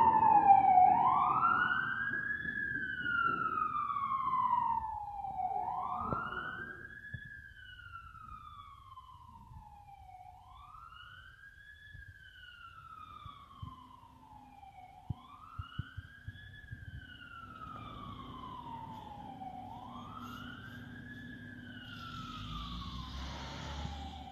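A siren wailing in slow cycles of about five seconds, each a quick rise in pitch and a long fall, loud at first and then fading. A few sharp knocks come around the middle, and a low engine rumble builds near the end.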